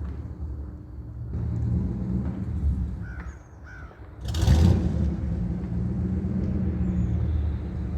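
A 5.2-litre V8 truck engine running steadily at low speed. A crow caws twice a little after three seconds in, and a short loud rush of noise comes about four and a half seconds in.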